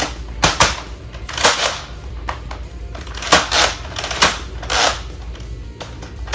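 Nerf Elite 2.0 Flip 32 lever-action blaster being worked by hand: a string of sharp plastic clacks from priming and handling, with a few short puffs of air as darts are fired.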